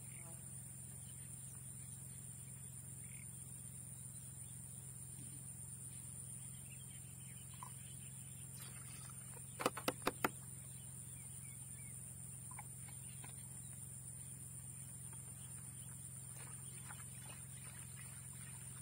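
Quiet rice-field ambience: a steady high-pitched hum and a low hum, with a few faint bird chirps. About ten seconds in, four sharp clicks come in quick succession as a plastic pesticide bottle and its cap are handled over a plastic bucket.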